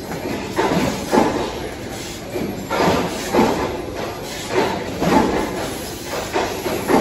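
Ironwood IR-3015F/3E fiber laser sheet cutter at work, its gantry and cutting head moving in quick stop-start strokes: the drive motors whir in short bursts that rise and fall in pitch, about two a second.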